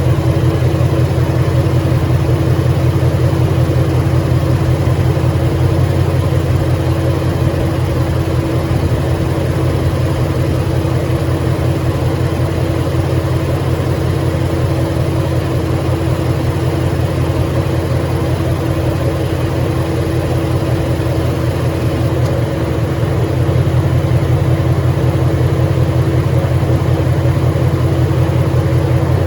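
2013 Ford Mustang GT's 5.0 Coyote V8 running steadily at idle, with a fine, even pulsing. The owner takes the noise for rod knock and is unsure whether the crankshaft is giving out.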